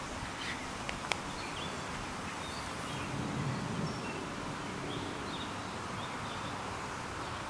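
Steady outdoor ambience with faint, scattered bird chirps and a single sharp click about a second in.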